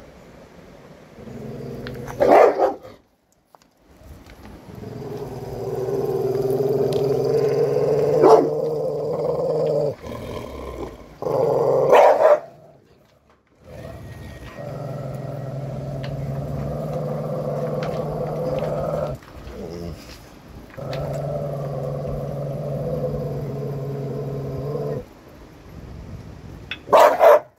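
A dog growling in long, low, steady growls that each last several seconds, broken by a few loud, sharp barks.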